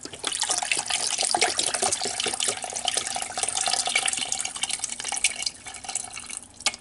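Beef stock pouring in a steady stream from a carton into the pot of an electric pressure cooker, splashing into the liquid pooled around the roast. The pour thins out and stops near the end.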